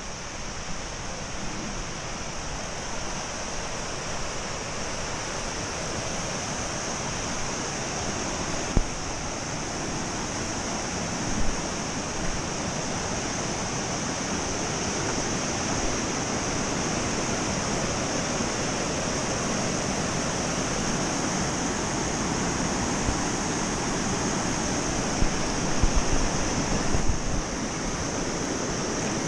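Fast river rapids rushing over rocks: a steady, even rush of whitewater. A few brief thumps stand out, the loudest near the end.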